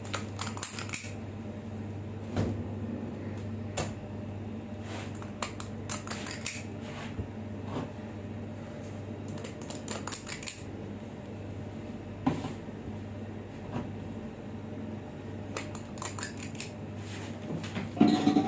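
Irregular clicks, taps and clinks of dishes and utensils being handled, over a steady low hum.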